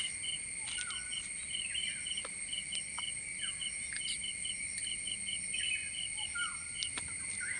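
Crickets and other insects calling steadily: a continuous high buzz with a short chirp repeating about three times a second. A few brief bird calls come in now and then.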